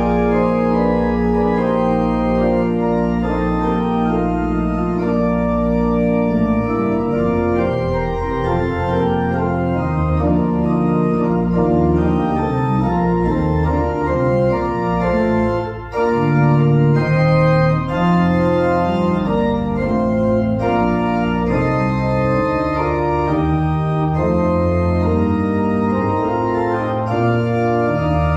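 Organ postlude: full sustained chords over a held low pedal note, the bass line starting to move after about six seconds, with a momentary break a little past halfway.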